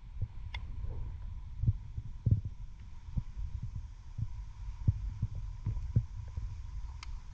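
Muffled underwater sound as picked up by a camera under the sea: a low rumble with irregular dull thumps and a faint steady tone.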